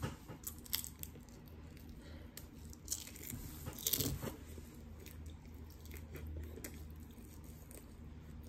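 Biting into and chewing crispy fried chicken close to the microphone: scattered crunches, the loudest about four seconds in.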